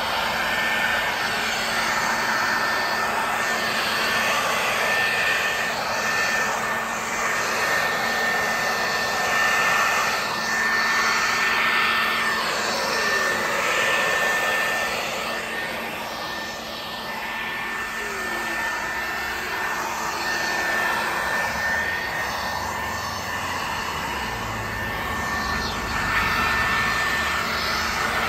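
Corded electric leaf blower running steadily with an even high whine over the rush of air, blowing cut grass off a concrete sidewalk.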